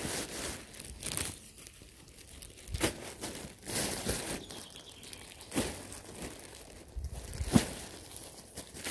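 Thin plastic rubbish bag rustling and crinkling as clothes and a black bin bag are pushed and shaken into it, with a few sharper crackles, the loudest about three-quarters of the way through.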